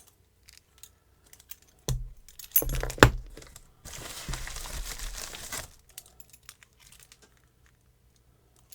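Hands unpacking a parcel of locks: a few knocks as things are picked up and set down, the loudest about three seconds in, then about two seconds of packaging crinkling.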